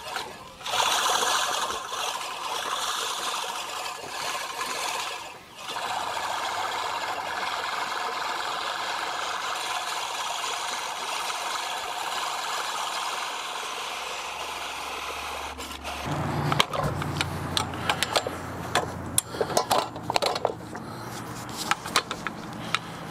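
Manual push reel mower cutting wet grass, its spinning reel blades making a steady whirring clatter that breaks off briefly about five seconds in. About sixteen seconds in the steady whir stops and gives way to irregular clicks and knocks as the mower balks: something has got hung up in the blades and it won't roll forward.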